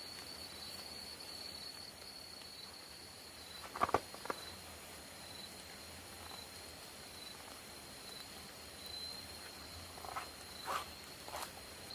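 Insect trilling steadily at one high pitch, with a couple of short knocks about a third of the way in and a few more near the end.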